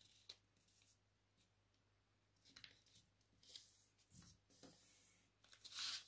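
Mostly near silence, with faint rustles and creases of a sheet of paper being folded by hand, and a louder papery swish near the end.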